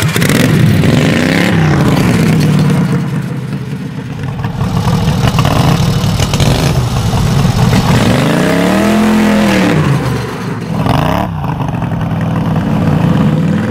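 Racing lawn mower's modified Predator 670cc V-twin revving hard under full throttle. Its pitch climbs and drops several times as the throttle is opened and eased off.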